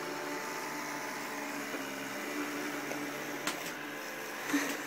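Samsung Navibot robot vacuum cleaner running with a steady whirring hum, a sharp click about three and a half seconds in and a light knock near the end.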